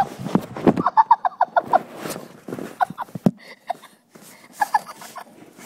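An animal's short pitched calls: a quick run of about eight in the first two seconds, then a few more scattered through the rest.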